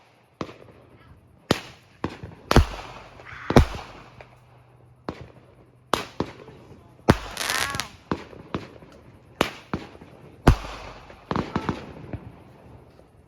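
Fireworks going off: a string of sharp bangs, about one a second, several trailing into crackling.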